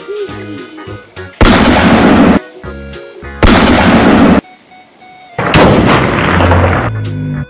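Three loud gunshot blasts about two seconds apart, each lasting about a second and cutting off sharply, the last a little longer, as a toy pistol is fired. Background music with a steady beat plays underneath.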